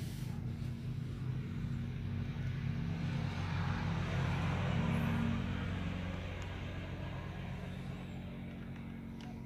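A motor running steadily with a low hum. It grows louder about halfway through, then slowly fades.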